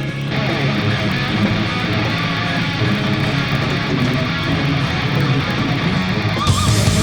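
Rock music with distorted electric guitar playing, heavy-metal style; the sound fills out about a third of a second in.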